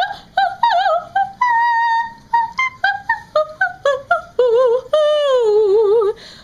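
A woman singing wordless, high notes with a wide vibrato: a run of short notes, a note held about a second and a half in, more short notes, then a long falling glide near the end.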